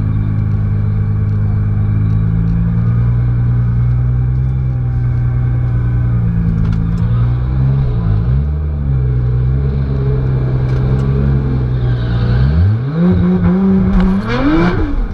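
Nissan GT-R's twin-turbo V6 heard from inside the cabin. It idles steadily with a few short blips of the throttle, then about 12 seconds in it revs up and holds briefly before climbing hard at full throttle as the car launches. The revs drop at a gear change right at the end.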